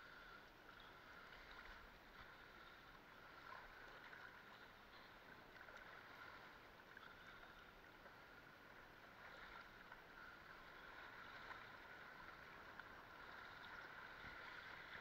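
Faint, steady wash and trickle of water along a windsurf board as it sails across calm water.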